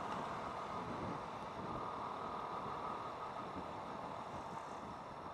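Steady wind and road noise from a moving motorcycle, an even hiss on the camera microphone, easing slightly toward the end.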